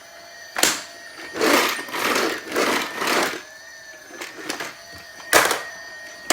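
Battery-powered toy vacuum cleaner running, its electronic vacuum noise a steady wavering whine, with rushing and rattling as it is pushed along the floor in three strokes. Two sharp knocks, about half a second in and near the end.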